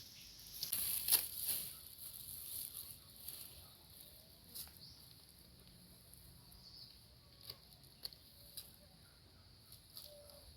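Rustling and scraping of soil and potato plants being handled during a hand harvest from a sack or bucket. It is loudest in the first couple of seconds, then softer with a few sharp clicks.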